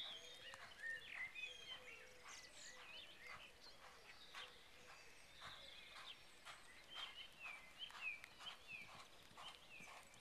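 Faint hoofbeats of a pony cantering on an arena surface, a steady rhythm of soft thuds. Birds chirp throughout.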